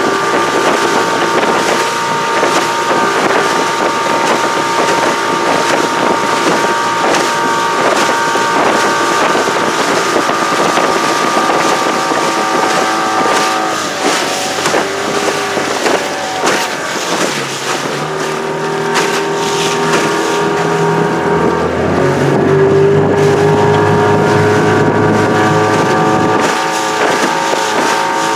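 Outboard motor driving a small boat under way, a steady engine note with wind on the microphone. About 14 seconds in the engine note changes and drops to a lower pitch for several seconds, then returns to the earlier note near the end.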